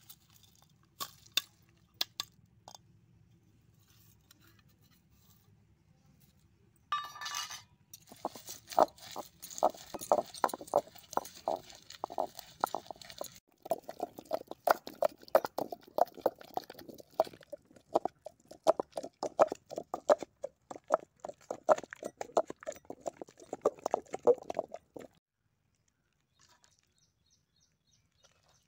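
Fried chana dal, garlic, chillies and curry leaves being pounded to a chutney in a granite stone mortar: long runs of rapid knocks and crunches, several a second, with short pauses, stopping near the end. A few clinks of a steel bowl against the stone as the ingredients are tipped in at the start.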